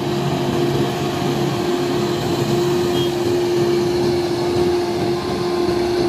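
Grove GMK6300L all-terrain mobile crane's diesel engine running as it drives, a steady drone with one held hum.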